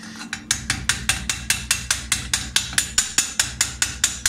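Chipping hammer rapping slag off a fresh stick-electrode fillet weld on thin-walled square steel tube: rapid, even metal-on-metal taps, about five a second, starting about half a second in.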